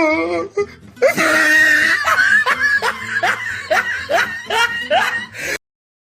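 Laughter sound effect: a wavering voiced note, then from about a second in a run of short, rising, breathy laughs, two to three a second. It cuts off suddenly about five and a half seconds in.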